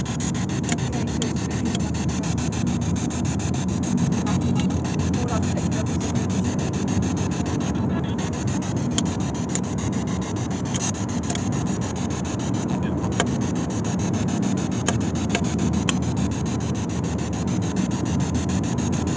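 Steady low rumbling noise inside a car, with rubbing handling noise on a handheld, foam-covered microphone held close to the face, and a faint steady high tone.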